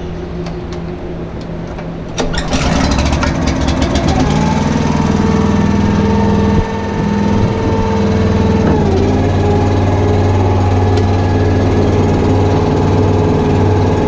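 A small engine on a motorized feed cart starts about two seconds in, speeds up, then runs steadily, settling to a slightly lower speed a little past the middle.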